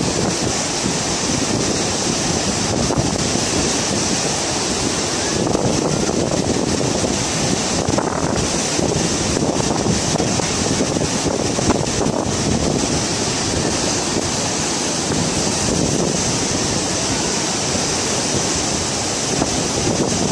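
Muddy floodwater of a wadi in flash flood rushing past in a loud, steady wash of noise, with wind on the microphone.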